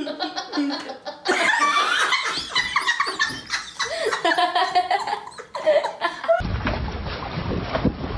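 A woman laughing hard in loud, breathless peals. Near the end it cuts to low wind buffeting the microphone.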